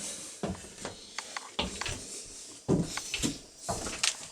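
Scattered light knocks and clicks, with a louder cluster of thuds about three seconds in.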